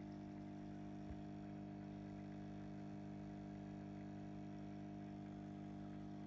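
Aquarium pump humming steadily and faintly, a constant electric drone.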